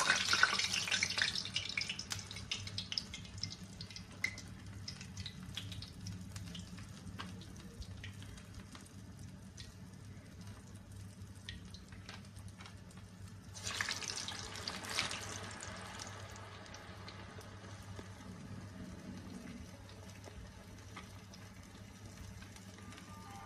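Medhu vadai (urad dal batter fritters) deep-frying in hot oil: a loud sizzle and crackle as a vadai goes into the oil, settling to a softer steady fizz with scattered pops. About halfway through a second vadai goes in, and the sizzle flares up again before settling.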